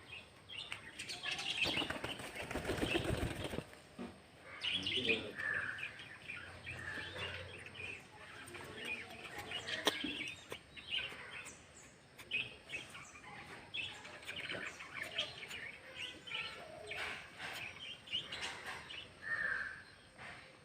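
Birds flapping their wings, loudest for a couple of seconds about a second in, followed by repeated short, high bird chirps with a few sharp clicks among them.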